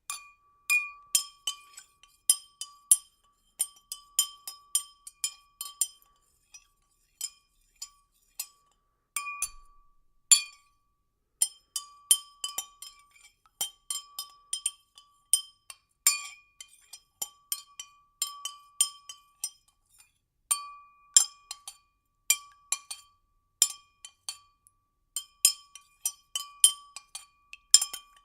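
Liquid being stirred in a glass, the stirrer clinking against the glass in a fast, uneven run of bright clinks, each ringing at the same pitch. The clinks thin out for a moment a few times.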